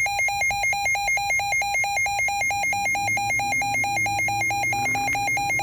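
Emergency Alert System alert tone: a loud electronic beeping that pulses on and off about six times a second, a lower tone together with higher ones, announcing a severe thunderstorm warning.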